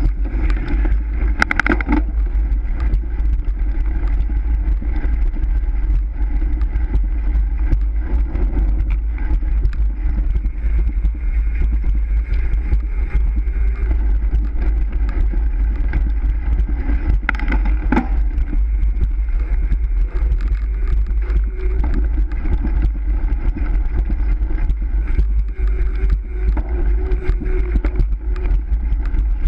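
Steady wind rush on the microphone of a camera mounted on a racing bicycle at speed, with the hum of the bike rolling over smooth concrete. Two brief sharper sounds stand out, about 2 and 18 seconds in.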